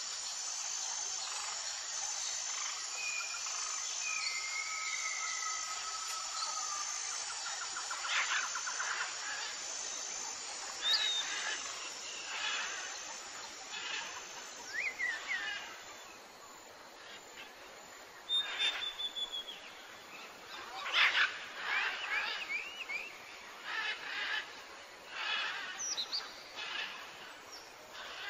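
Small birds chirping and whistling in short calls and quick rising and falling notes over a steady hiss of outdoor background. The calls grow louder and more frequent in the second half.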